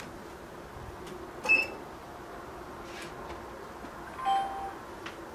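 Two short electronic beeps from the multicopter's electronics: a sharp high beep about a second and a half in, then a lower, slightly longer beep about four seconds in.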